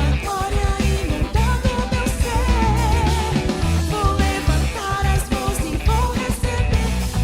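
Worship band music: a lead vocal with wavering, sustained notes over a full band with a heavy bass and drums.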